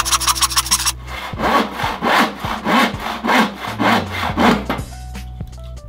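Hand saw cutting through a wooden shelf board, trimming off its back edge, in steady strokes about two a second. It starts about a second in and stops near the end.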